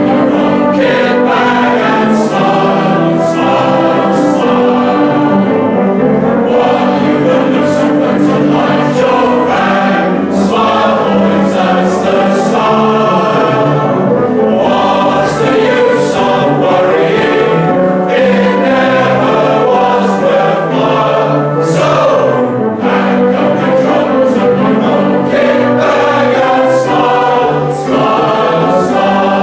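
A choir of many voices singing with instrumental accompaniment, at a steady, loud level.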